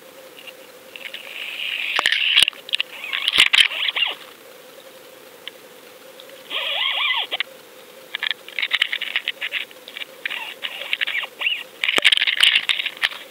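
Underwater camera housing scraping and knocking against a rocky bottom: bursts of crackling and scratching, with a few sharp knocks about two, three and a half and twelve seconds in, over a faint steady hum.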